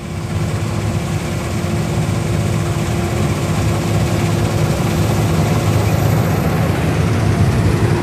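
Bakhsish 930 combine harvester running while it cuts wheat: a steady heavy engine drone with a constant hum over it, getting louder over the first couple of seconds as the machine comes closer, then holding steady.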